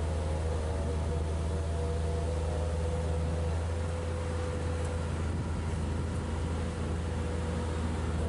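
Watermaster amphibious dredger's engine running steadily with a low drone, and a fainter higher tone above it that wavers in pitch during the first few seconds.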